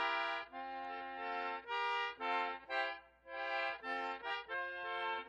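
Background music: a free-reed instrument plays an instrumental melody of short, separate held notes between sung verses of a folk song.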